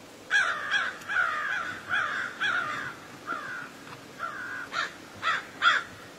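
Crow cawing: about a dozen short, harsh caws in quick, irregular runs.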